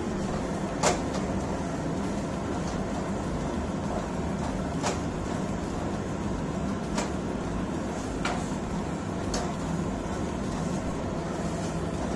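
A gobi paratha cooking on an iron tawa over a lit gas burner, a steady hiss with a low hum under it. Five faint clicks come at intervals as a wooden presser presses the paratha against the pan.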